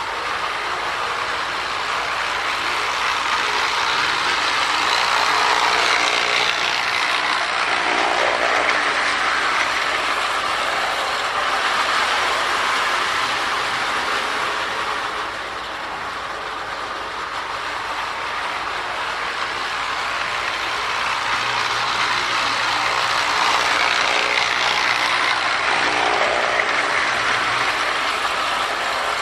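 Marx pre-war Commodore Vanderbilt tinplate toy locomotive running around the track on its original pre-war electric motor: a steady whirring and clattering of motor, gears and wheels on the rails. It grows louder and fades as the train circles, nearest about six seconds in and again near the end.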